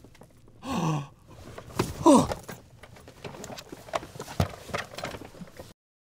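Two cries falling in pitch, a short one about a second in and a louder, longer one about two seconds in, among scattered sharp knocks and clicks. The sound cuts off abruptly near the end.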